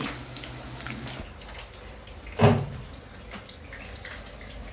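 Eggplant slices frying in hot oil in a pan: a steady sizzle with fine crackling. A single loud thump comes about two and a half seconds in.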